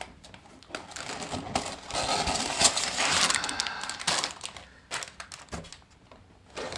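Plastic bags of Lego Technic parts crinkling, the small plastic pieces inside clicking and rattling, as they are handled and taken out of a cardboard box. The handling noise is busiest in the middle and dies down near the end.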